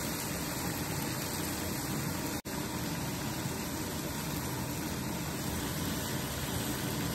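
Steady rushing roar of a gas burner under a large aluminium pot of mutton frying in oil.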